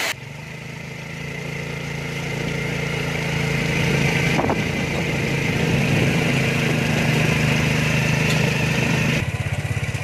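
A motor vehicle's engine running steadily, growing louder over the first few seconds and then holding. Near the end it gives way to a faster, pulsing engine note.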